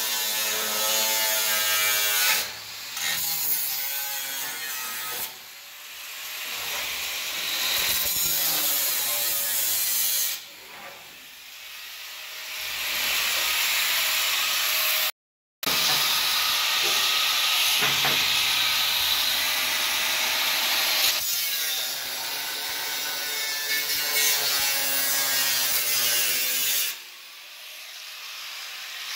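A 4.5-inch angle grinder cutting into the sheet steel of a pickup door top, its motor whine rising and falling with load. It runs in several long cuts with short lulls between them.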